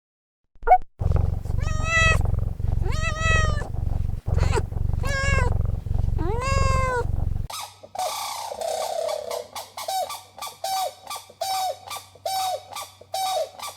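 Animal calls: four drawn-out, arching calls over a steady low rumble, then a quick regular series of short calls about two a second.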